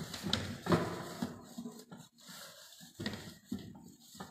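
Paper raffle ticket stubs rustling and scraping as a hand stirs them inside a raffle box, in uneven bursts with a few sharp ticks.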